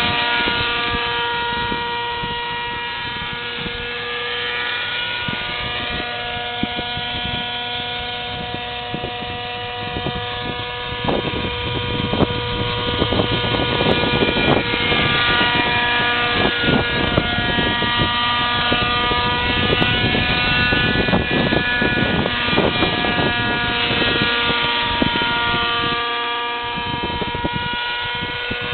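Raptor 50 nitro RC helicopter running, its glow engine and rotor giving a steady high multi-toned note whose pitch drifts slowly up and down. A stretch of crackling runs through the middle.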